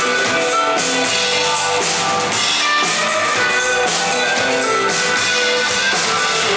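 Rock band playing live in an instrumental passage: electric guitars and bass over a steady drum-kit beat, with no singing.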